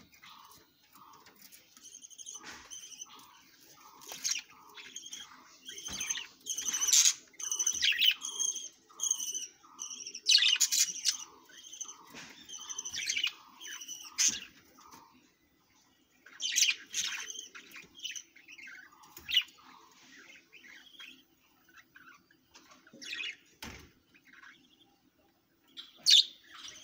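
Budgerigars chirping and chattering: a run of short, evenly repeated calls about twice a second for roughly the first half, with louder, higher chirps in clusters over them, then scattered chirps later on. A faint steady hum runs underneath.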